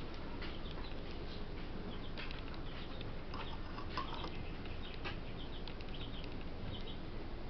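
Small birds chirping now and then over a steady low background hiss, with one light tap about four seconds in.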